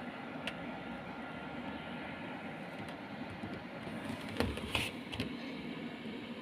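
Scarlett SC-FH53K03 fan heater running, a steady rush of fan and air noise. A short cluster of clicks and a knock comes about four and a half seconds in.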